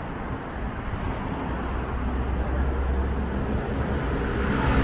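Street traffic: a steady rumble of passing cars, growing a little louder near the end as a vehicle approaches.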